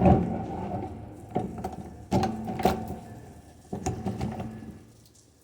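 A flat screwdriver prying at parts inside a partly dismantled DeWalt drill: about six irregular knocks and clicks of metal and plastic, some with a short ring.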